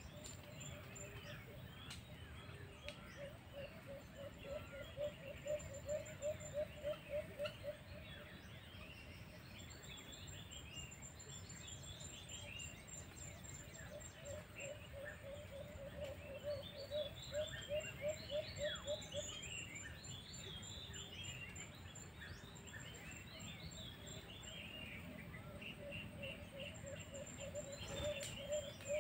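Birds calling: a low call repeated in quick pulses, about three or four a second, comes in three runs of several seconds each, with smaller birds chirping higher over it.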